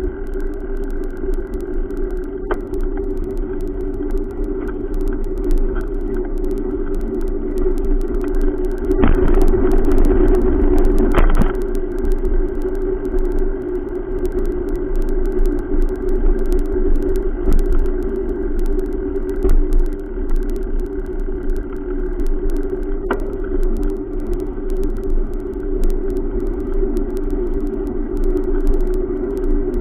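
Steady rumble of wind and rolling noise on a bicycle-mounted camera riding along a concrete sidewalk, with road traffic alongside. A louder rush comes about nine to eleven seconds in, and there are a few sharp clicks.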